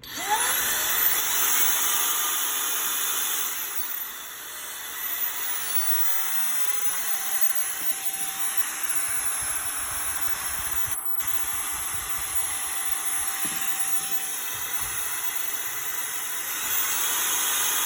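Arçelik cordless stick vacuum's motor spinning up with a rising whine, then running steadily with a high airy hiss, powered by its freshly renewed 7S battery pack after the repair. It gets a little louder near the end.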